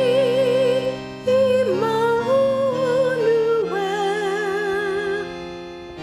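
Slow background music: a melody of long held notes with vibrato over sustained chords.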